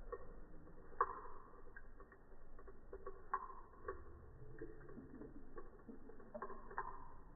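Running water in slow motion, slowed down to irregular low, hollow drips and plops, each with a short ringing tail.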